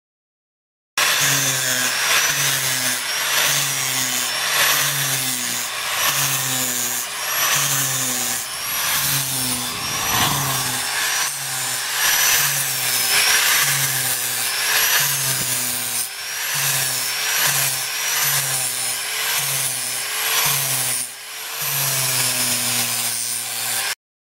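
Electric grinder with a sanding disc grinding into a fiberglass boat hull to widen and taper a hole for patching. The whine rises and falls in pitch about one and a half times a second. It starts about a second in and cuts off abruptly near the end.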